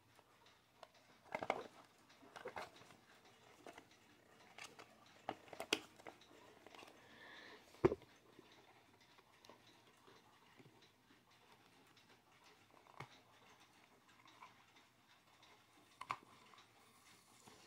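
A small plastic travel alarm clock being turned over in the hands: irregular light clicks, taps and rubbing on its case, with one sharper knock about eight seconds in.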